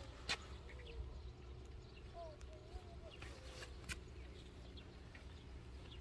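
Quiet outdoor ambience: a low rumble of wind on the microphone, a few sharp clicks, and faint wavering animal calls in the distance through the middle.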